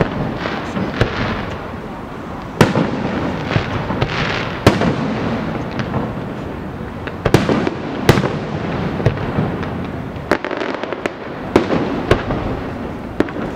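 Aerial fireworks display: a string of loud bangs from bursting shells, one every second or two, each trailing off into crackle and echo, with a quick run of smaller pops about ten seconds in.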